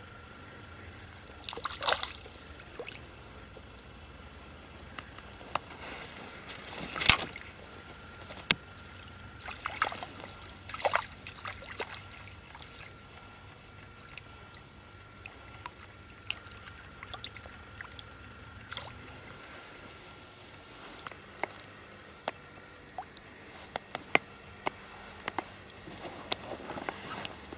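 Small splashes and sloshes of water at the bank's edge, mixed with light clicks and knocks of hands and tackle, the loudest about 7 seconds in, as a float rod is handled and cast.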